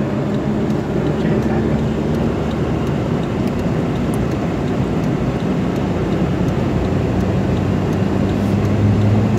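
Car engine running steadily as the car drives slowly through flooded street water, heard from inside the cabin, with water rushing and splashing against the car. The engine hum grows louder near the end.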